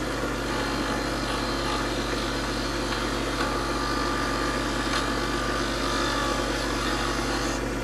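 Proxxon PD 250/E benchtop metal lathe running steadily while its cutting tool lightly skims the back side of freshly cut threads on an aluminium post. A faint high tone joins the steady machine hum about halfway in and fades near the end.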